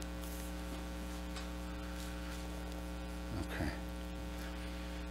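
Steady electrical mains hum with several even overtones, with a brief faint voice sound about three and a half seconds in.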